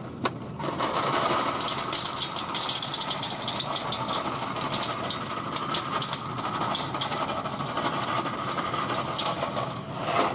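Dry rotini pasta pouring from a cardboard box into a metal pan, a dense, continuous rattling clatter of hard pieces hitting the metal and each other. It starts about a second in and stops just before the end.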